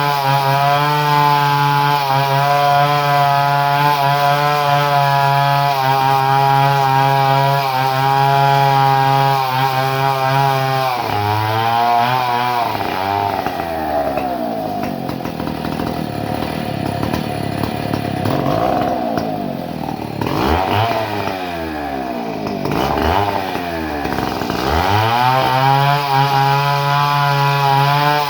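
Two-stroke chainsaw engine running at a steady speed. About a third of the way in, its speed starts rising and falling over and over for about fourteen seconds, then it settles back to a steady pitch near the end.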